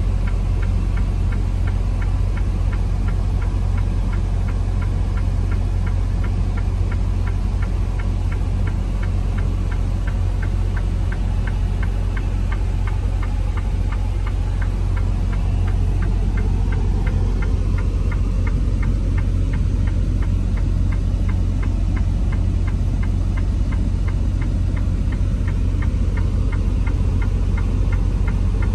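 Semi-truck diesel engine idling, a steady low rumble, with a regular light ticking about three times a second over it.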